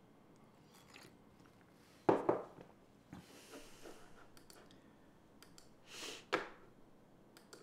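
A man sipping a hot drink from a ceramic mug, with soft breaths and small handling knocks; the loudest is a short knock about two seconds in, and another sharp knock comes about six seconds in.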